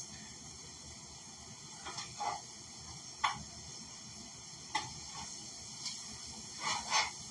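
Chickpeas frying in a frying pan: a steady low sizzle with about half a dozen sharp ticks and pops scattered through it.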